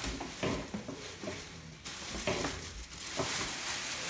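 Packaging being handled during unboxing: irregular rustling and crinkling with scattered light knocks.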